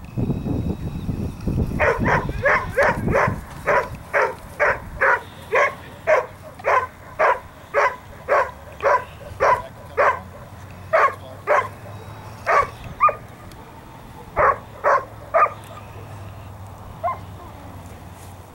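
Dog barking repeatedly at a steady rate of about two barks a second for some thirteen seconds, then stopping, with one faint bark after a short pause. A low rumble comes before the barking starts.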